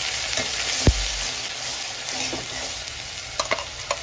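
Wet ground masala paste sizzling in hot oil in a metal pot just after being added to the tempering, the sizzle slowly dying down. There is a dull thump about a second in, and near the end a few sharp clicks of the metal ladle against the pot as it is stirred.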